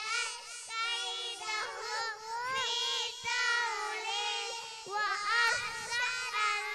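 Several young girls reciting together in unison into microphones over a PA, in a sing-song chant with short breaks between lines.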